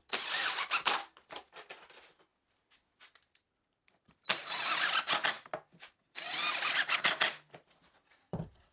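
Cordless impact driver driving GRK #9 × 2½-inch self-drilling screws into pine 2x3 bracket pieces, in three runs of about a second each.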